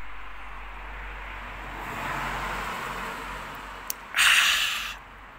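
A man's loud, breathy open-mouthed 'haaah' exhalation, about a second long and starting about four seconds in, his reaction to a swig of ice-cold water. Before it there is a steady soft hiss.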